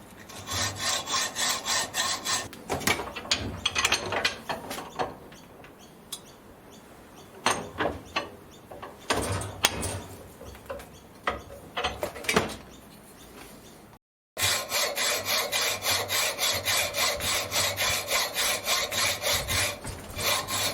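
Hand sawing through an aluminium block held in a vise, a quick, even run of scraping strokes, then slower, irregular strokes, then a brief break and steady strokes again.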